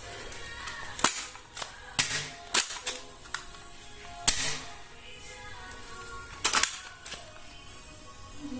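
Toy gun firing a series of sharp, irregularly spaced shots, the loudest about four seconds in, over background music.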